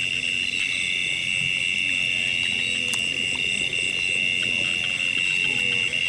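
Night chorus of insects and frogs in rice paddies: a continuous high-pitched trilling drone at an even level, with a few faint clicks.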